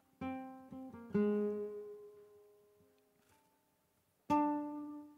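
Flamenco guitar playing a soleá: a few plucked chords in the first second or so, the loudest just after one second, left to ring out and fade, then another loud chord about four seconds in.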